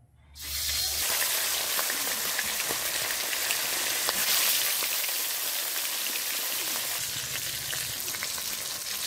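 Pieces of sorputi fish sizzling as they fry in hot oil in an iron kadai. The sizzle starts suddenly just after the start, as the fish goes into the oil, then carries on as a steady hiss with scattered crackles.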